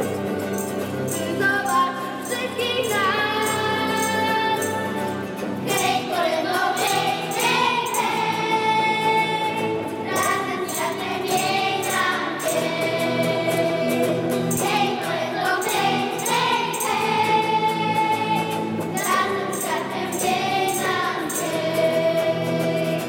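Children's choir singing a Polish Christmas carol in unison over backing music, with a steady jingling beat of several strokes a second.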